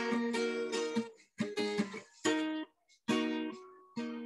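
Acoustic guitar strummed: about five chords struck roughly once a second, each ringing and then fading.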